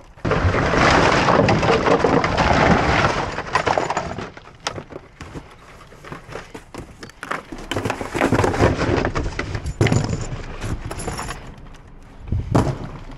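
Cardboard boxes and packaging rustling and crackling as wire is pulled out from among them by gloved hands. The rustling is loudest for the first few seconds, then thins to scattered clicks and crackles, with a sharp knock near the end.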